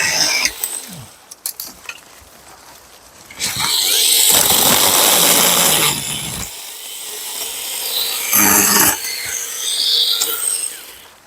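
Battery-powered mini chainsaw cutting into wood in bursts, a longer cut about three and a half seconds in and a short one near the end.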